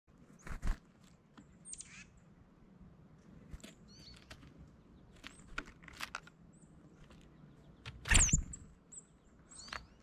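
Tufted titmice at a tray feeder: short, very high, thin chirps scattered throughout, with sharp knocks and wing flutters as the birds land and pick at the peanuts. The loudest knock and chirp come a little after 8 seconds.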